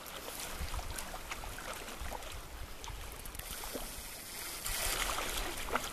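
Steady rush of a flowing river, with faint scattered ticks and a brief louder surge of water noise about five seconds in.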